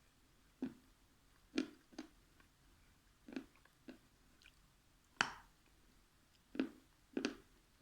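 A person eating close to the microphone: about eight short, wet mouth sounds spaced a second or so apart, the loudest about five seconds in.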